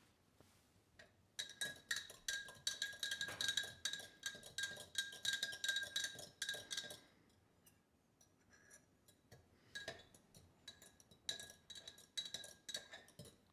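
A utensil clinking rapidly against the inside of a glass container, the glass ringing with each tap, as copper chloride is stirred into hot water to dissolve. A long run of clinking from about a second and a half in to about seven seconds, scattered taps, then another run near the end.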